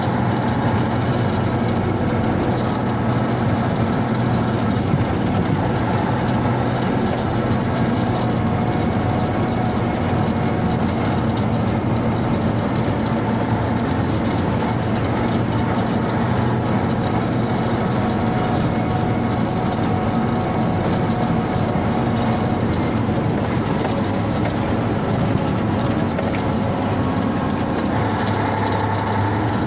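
Vehicle driving along a dirt road, heard from inside the cab: a steady engine hum over the rumble of tyres on the road surface.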